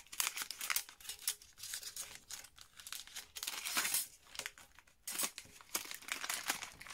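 Clear plastic packaging sleeve crinkling and rustling in small irregular crackles as thin metal cutting dies are handled and slid back into it.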